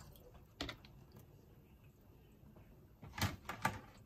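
Crockery and plastic lids knocking against each other as they are stacked in a stainless-steel sink: a single knock about half a second in, then a few quick clatters near the end.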